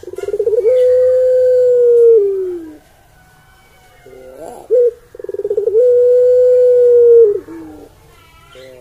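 Barbary dove (ringneck dove) cooing twice. Each coo opens with a quick stuttering run of notes, then holds a long steady note that sags in pitch at the end, with about a second of quiet between the two.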